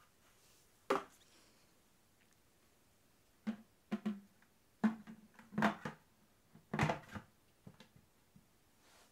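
Hollow plastic knocks and clunks, about seven in all at uneven intervals, some with a short low ring, as the plastic housing and top of a VAX bucket wash-vacuum cleaner are handled.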